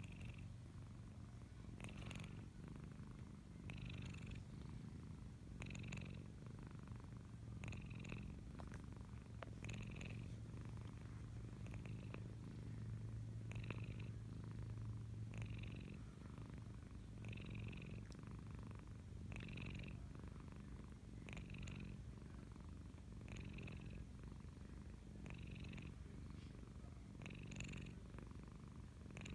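Flat-faced cat purring steadily in her sleep, with a short snore on each breath about every two seconds; the snoring comes from her flat face.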